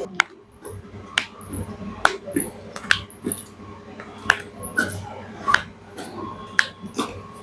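A series of short, sharp clicks or taps, about one or two a second at uneven spacing, over a faint steady hum.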